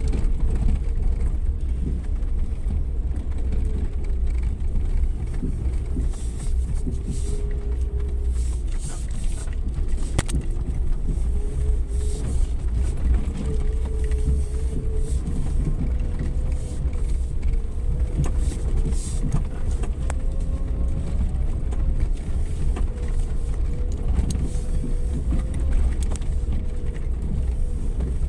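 Suzuki Jimny 4x4 driving off-road: a steady low engine and drivetrain rumble with a whine that drifts slightly in pitch, and scattered knocks and rattles from the rough ground.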